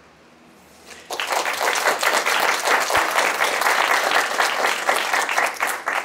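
Audience applauding, a dense patter of many hands clapping that starts about a second in.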